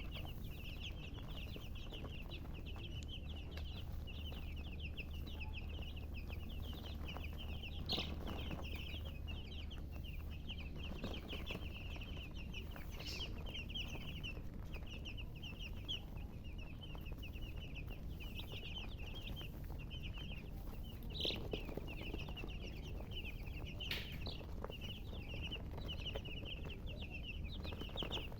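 A group of chicks peeping without a break, many short high-pitched chirps overlapping, with a few louder sharp sounds standing out now and then. A steady low hum runs underneath.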